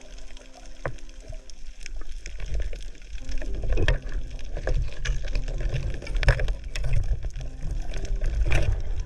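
Water sloshing and rumbling around an underwater camera, with scattered sharp clicks and knocks.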